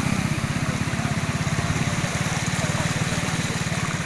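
Small vehicle engine running with a steady, fast, even chug while it drives through flood water over the road.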